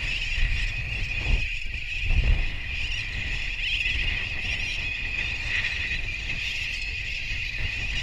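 Massed calling of a large tern colony flying overhead: a constant wall of shrill cries from hundreds of birds, with a low rumble of wind on the microphone.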